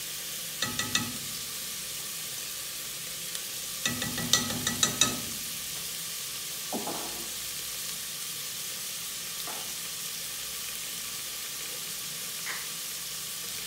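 Chicken drumsticks frying in a pressure-cooker pot, with a steady sizzle. A metal spoon clinks in two short bursts, about a second in and again around four to five seconds in, with a few single soft knocks later.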